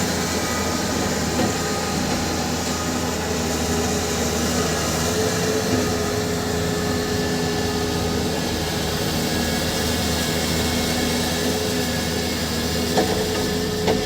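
Heavy diesel earthmoving machinery running steadily, a higher whine joining about five seconds in, with a few knocks near the end.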